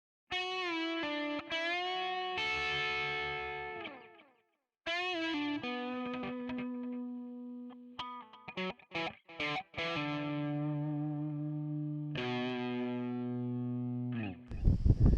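Electric guitar music with distortion and effects: held, bent notes, a pause, then a run of short choppy notes before more held chords. Near the end the music cuts off and loud wind buffets the microphone.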